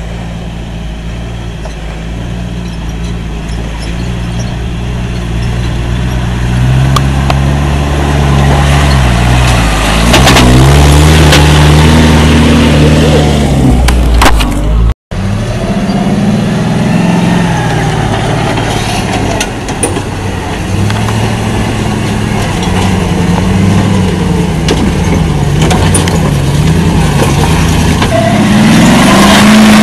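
Four-wheel-drive engines revving up and down as they crawl in low gear over a rocky, washed-out track, getting louder as the first vehicle comes closer. About halfway through the sound breaks off abruptly and a Land Rover Defender's engine takes over, revving as it climbs a rock step.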